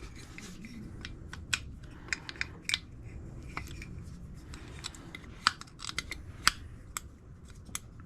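Irregular light clicks and taps of small metal carburetor parts being handled and turned over, a few sharper knocks among them, over a low steady hum.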